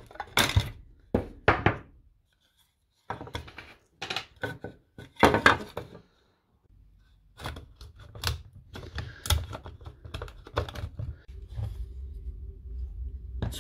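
Tin snips cutting through the hard plastic of a DeWalt Flexvolt battery casing: a series of sharp, separate crunching snips. Later come lighter plastic knocks and rubbing as the cell pack is pushed into the trimmed case.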